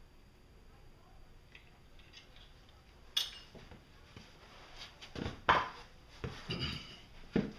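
Quiet at first, then a few scattered metallic clinks and knocks from hard tools being handled and set down during drain-plug work. The loudest knock comes about halfway through, and a few more follow near the end.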